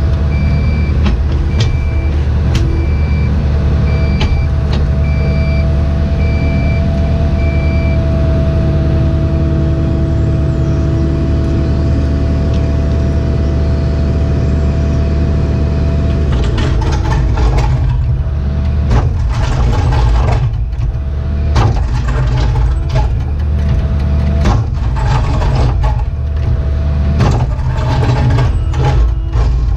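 Cat 304E2 mini excavator's diesel engine running steadily under hydraulic load, heard from inside the cab, with a backup alarm beeping about once a second for the first eight seconds or so. From about halfway through, the bucket scrapes and clanks repeatedly against hard-packed crushed stone in the hole.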